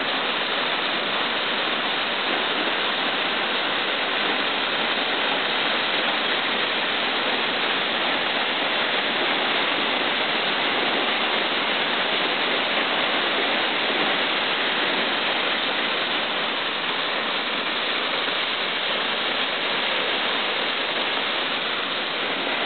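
Double-drop waterfall: water pouring down in a steady, unbroken rush.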